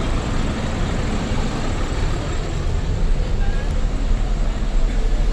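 Bus running on the road: a steady deep rumble with road noise.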